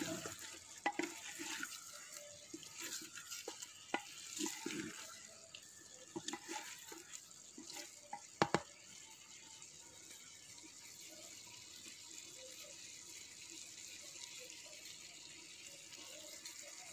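Wooden spoon stirring and knocking chunks of meat around inside a clay handi as they fry in their own rendered fat: scattered soft knocks for the first half, the sharpest just past halfway, then only a faint hiss.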